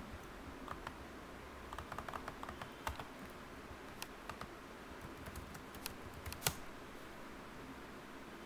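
Computer keyboard typing: irregular key clicks while a username and password are being entered, thickest about two to three seconds in, with one louder click about six and a half seconds in.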